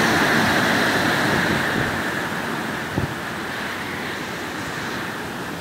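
Hurricane wind and rain: a steady rush of noise that slowly eases, with wind buffeting the microphone. A brief knock about three seconds in.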